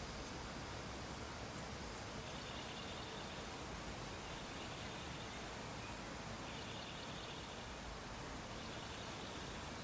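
Steady background hiss with faint, high trilling chirps that come and go, each lasting about a second, roughly every two seconds.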